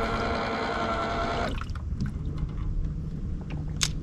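Electric trolling motor on a fishing boat whining steadily as it repositions the boat, cutting off about a second and a half in and leaving a lower hum. A single sharp click near the end.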